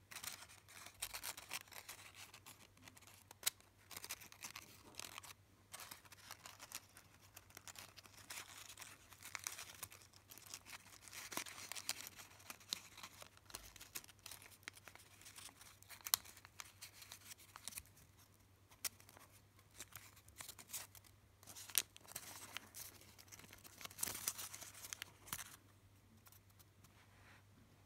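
Folded origami paper rustling and crinkling faintly on and off as fingers handle and press its folds, with a few sharper ticks; it dies away near the end.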